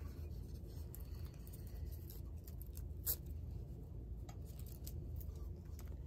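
Faint rustling and crinkling of the fusible-web paper backing being peeled and handled on an appliqué piece, with one sharp tick about three seconds in, over a steady low hum.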